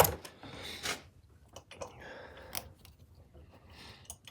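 Irregular metallic clicks and scraping of hand tools on the engine mount bolts under a car, with a sharp click at the start and another near the middle.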